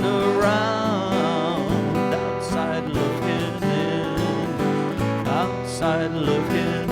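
Acoustic guitar strummed and picked under a man's sung melody, including a long drawn-out note with vibrato over the first second or so.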